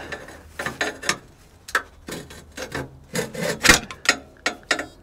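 Steel pry bar levering and scraping against a lubricated rubber exhaust hanger as it is worked off its metal hanger rod: a string of short, irregular scrapes and rubbery squeaks.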